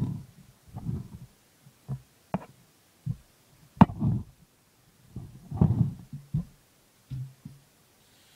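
Irregular low, muffled thumps and a few sharp knocks from handling a stainless steel saucepan of dry rice and the phone filming it, with the loudest knock about four seconds in.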